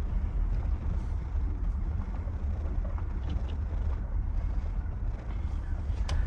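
Low, steady rumble of a 1993 Chevy S10 pickup rolling with its engine off, tyre and road noise as it is pushed and coasts in neutral for a roll start, with a sharp knock near the end.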